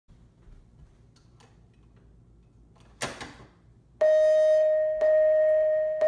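A Simplex fire-alarm pull station's handle is pulled down with a sharp clunk about halfway in. A second later a Simplex speaker-strobe starts sounding a loud, steady single-pitch alarm tone in one-second pulses, the alert tone that leads into a voice-evacuation message.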